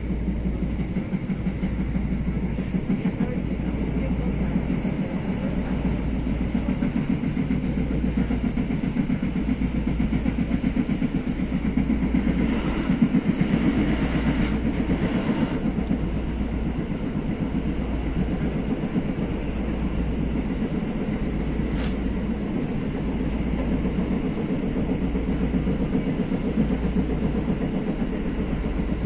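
TE-90 electric light rail train running along the track: a steady low rumble with fast rhythmic rattling. A louder rushing stretch comes about halfway through, and there is a single sharp click a few seconds later.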